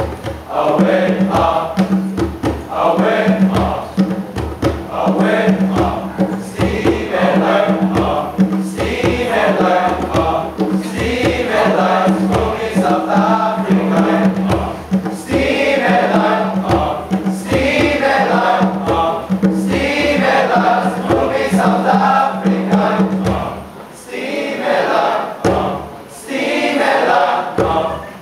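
Teenage boys' choir singing on stage, the voices moving in phrases over a steady low note held underneath that breaks off briefly between phrases.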